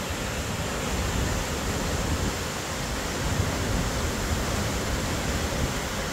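Waterfall rushing, a steady roar of falling water with a deep rumble beneath.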